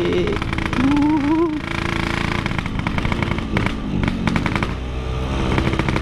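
Two-stroke single-cylinder engine of a Yamaha RX King motorcycle running under way with a noisy exhaust. The revs dip and climb again about four seconds in.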